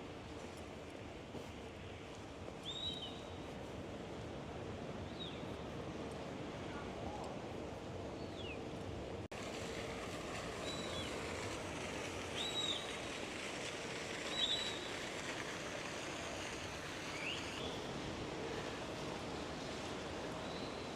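Steady outdoor ambience with the wash of sea surf, and short high chirps every couple of seconds. It breaks at a cut about nine seconds in.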